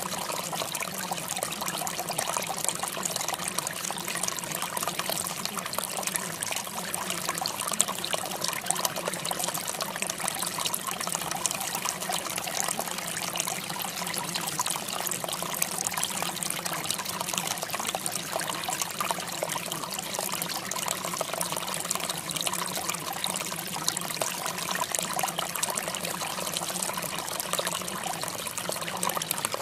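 Steady running water, trickling without a break.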